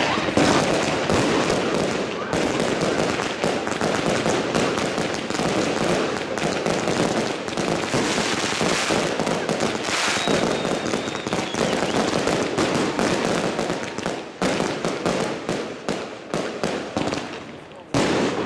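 Fireworks going off: a dense, continuous crackle of many rapid pops, thinning into separate bangs over the last few seconds, with a loud bang near the end.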